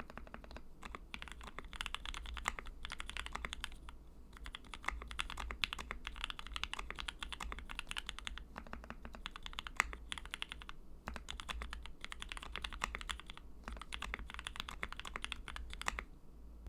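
Custom Tofu 65 acrylic mechanical keyboard being typed on quickly in bursts, with short pauses between runs of keystrokes. It has lubed and filmed Gateron Milky Yellow linear switches and HK Gaming keycaps on an aluminium plate with plate foam.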